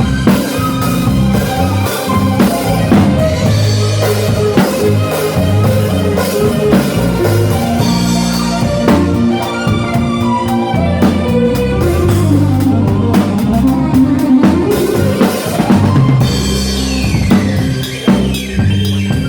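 A live band playing at a sound check: a drum kit with kick drum and snare keeps a steady beat under bass and sustained melodic instrument lines.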